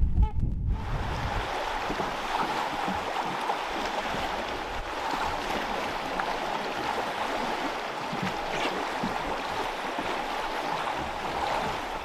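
Geese honking once or twice right at the start, then a steady rush of wind and water from a boat moving on the river, with a faint steady whine underneath.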